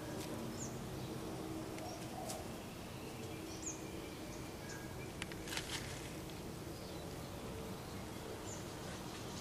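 Steady outdoor background noise with a faint low hum, broken by a few short, high chirps that drop in pitch and a cluster of clicks a little past the middle.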